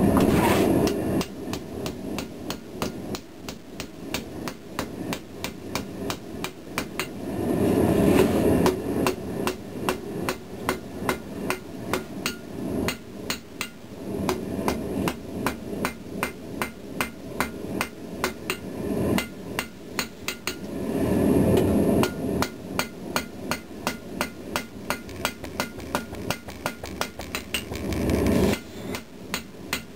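Ball-peen hammer striking red-hot pattern-welded steel on an anvil in a steady run of about three blows a second, pointing the end of the billet. A louder rushing noise swells up a few times under the blows.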